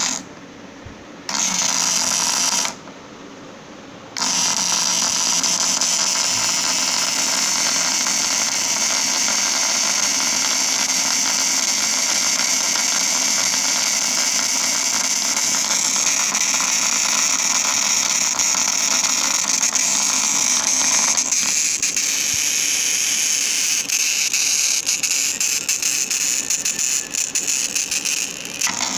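Small brushed DC motor switched on twice in short bursts, then running continuously at high speed with a steady high-pitched whine, being run to destruction. Near the end the sound turns uneven and crackly.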